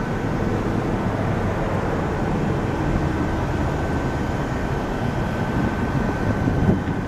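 Embraer E175 twin-turbofan jet at takeoff thrust, climbing out after liftoff: a steady, dense jet rumble heard from a distance, with a thin steady high tone above it.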